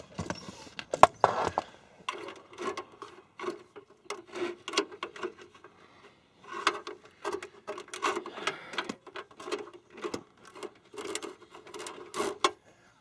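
Hands working metal oil cooler line fittings and hoses into place: irregular clicks, clinks and rubbing.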